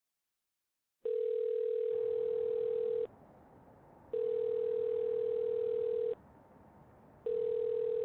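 Telephone ringback tone of an outgoing call ringing out, not yet answered: after about a second of silence, a steady single-pitched tone rings three times, each ring about two seconds long with a second's gap between.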